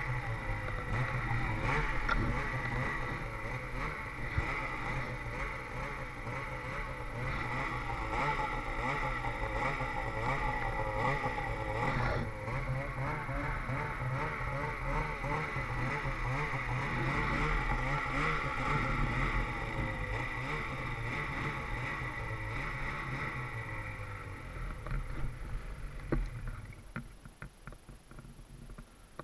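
Ski-Doo snowmobile engine running while the sled works through deep powder, its pitch wavering up and down. A few seconds before the end the engine sound drops away sharply, leaving a much quieter hum with a few clicks.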